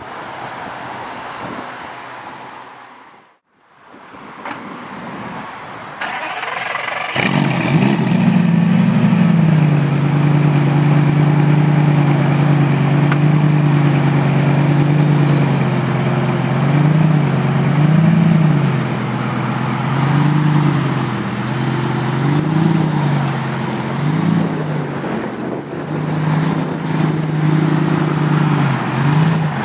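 Lamborghini Gallardo V10 starting up about seven seconds in, catching and settling into a loud, steady idle. From about halfway on it is blipped repeatedly, each short rev rising and falling in pitch.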